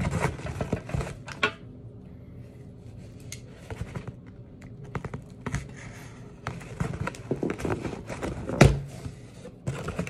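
A cardboard shipping box being worked open by hand: irregular scratching, tapping and scraping at its flaps, with one sharper crack near the end.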